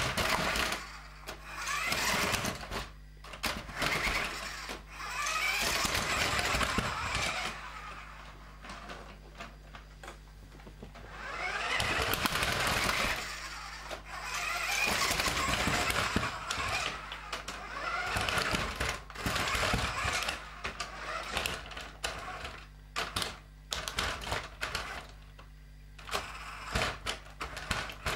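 New Bright Ram RC truck's battery-powered electric drive motor and gearbox whirring in repeated bursts of one to three seconds as it is driven over a ridged cardboard ramp, with scattered knocks and clicks between the bursts.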